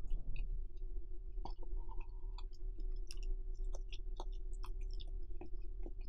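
Close-miked chewing with many small, wet mouth clicks and smacks, scattered irregularly, over a steady low hum.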